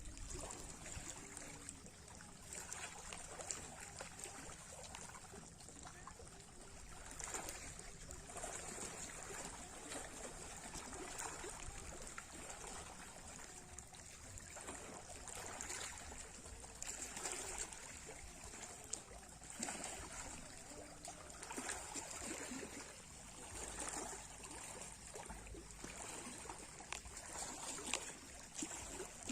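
Small sea waves lapping and splashing, swelling and fading every couple of seconds, over a steady high-pitched hiss.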